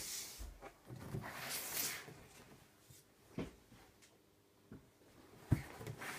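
Hands handling a large cardboard LEGO set box: brushing and sliding sounds in the first two seconds, then a few light knocks, the loudest about five and a half seconds in.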